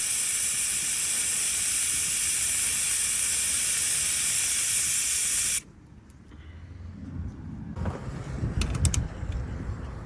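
Car air-conditioning service-port valve pressed open with a key: pressurised gas hissing out steadily, which the owner takes for air in the system rather than refrigerant. The hiss cuts off suddenly about five and a half seconds in, followed by low rumbling and a few clicks.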